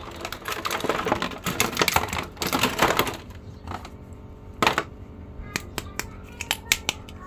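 Thin clear plastic blister tray crackling and clicking as a small plastic action figure is pried out of it: a dense run of crackles for about three seconds, then scattered sharp clicks as the figure is handled.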